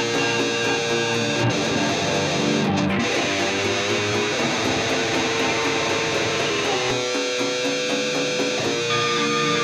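Music led by guitar: held notes and chords over a dense, steady texture, the harmony shifting about three seconds in, again near seven seconds, and once more near the end.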